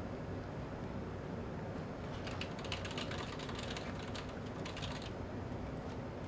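Faint quick clicks of typing on a computer keyboard, clustered from about two to five seconds in, over a steady hiss and low hum.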